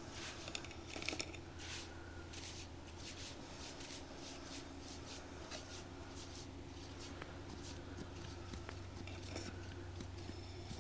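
Close-miked ASMR hand sounds: quick, soft brushing and scratching strokes, several a second, denser in the first few seconds, over a faint steady hum.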